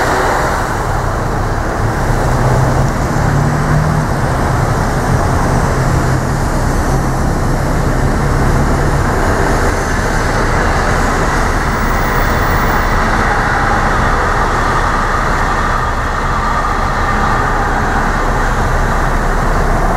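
Steady road-traffic noise at a railroad grade crossing, with a vehicle engine droning through the first half. Near the end a Brightline passenger train led by a Siemens SCB-40 locomotive approaches the crossing.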